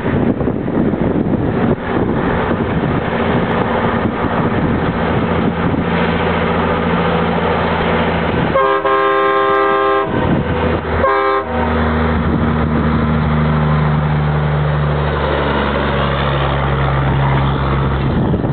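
Train horn on a 1999 Peterbilt logging truck blown in a long blast of several chime tones about halfway through, then a short second blast, over the running diesel engine. After the horn the engine settles into a steady drone.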